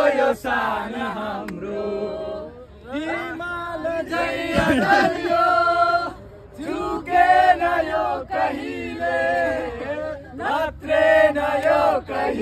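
A group of people singing and chanting together, several voices overlapping on drawn-out notes, with short breaks between phrases.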